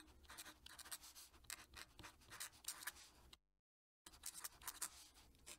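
Faint scratching of a fountain pen nib on paper in quick successive strokes while writing. The scratching stops abruptly a little past halfway, then starts again about half a second later.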